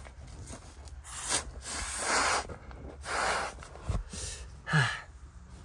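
A person blowing by mouth into the valve of a self-inflating sleeping pad to help it fill, several long puffs of air with breaths taken between them.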